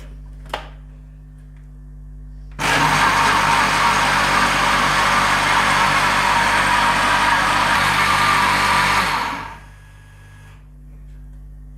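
Kenwood food processor's blender jug running, blending a liquid mix of milk, water and sugar: a short click, then the motor starts about two and a half seconds in, runs steadily and loud for about seven seconds, and winds down when switched off.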